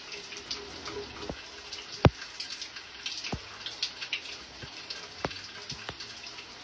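Water dripping in a shower stall: single drops plinking at irregular intervals, the loudest about two seconds in, over a faint steady hiss.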